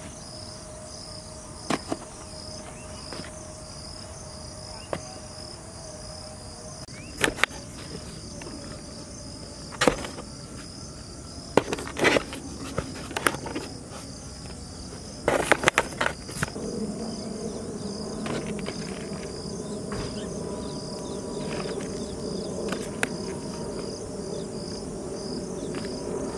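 Crickets chirping steadily in a fast, pulsing high trill, with scattered knocks and clacks of plastic food containers being set down in a cardboard box. A low steady hum joins about two-thirds of the way through.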